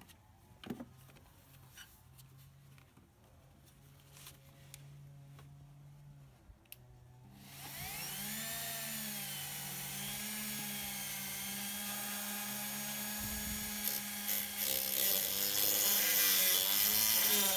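Faint handling clicks, then about seven seconds in a handheld rotary tool spins up. Its whine rises, then dips and recovers as it grinds and cuts away the old hose swage on the power-steering return-line spigot.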